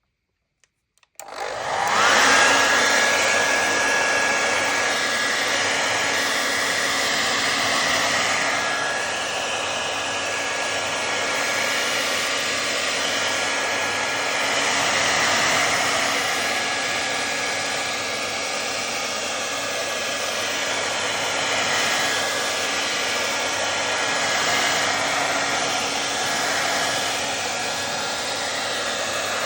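Hand-held hair dryer switched on about a second in, its motor whine rising quickly to a steady pitch over the rush of air, then running steadily.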